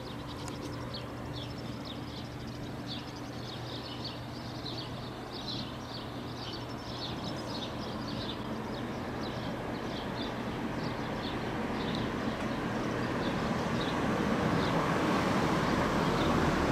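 Outdoor ambience: a steady low hum with many short high chirps through the first two-thirds, and a rush of passing vehicle noise that grows steadily louder toward the end.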